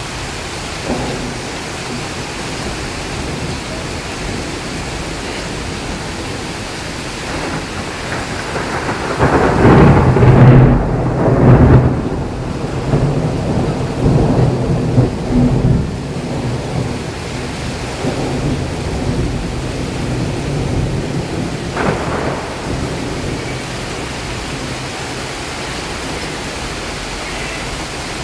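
Steady hiss of heavy rain, with a loud rolling rumble of thunder that builds about eight seconds in, peaks a few seconds later and fades out, followed by a smaller rumble near the end.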